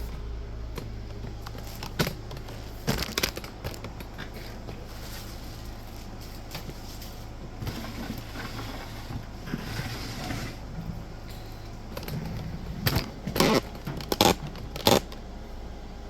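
Handling sounds of thin metal tweezers being tried out: scattered sharp clicks, taps and scrapes, with a cluster of louder clicks near the end, over a steady low hum.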